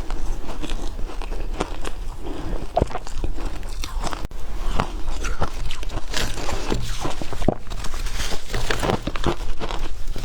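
Ice being bitten and chewed, a rapid, irregular run of crunches and crackles.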